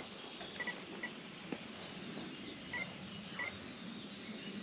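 Short electronic beeps from a carp bite alarm, a few single-pitch beeps at irregular gaps, over faint outdoor ambience.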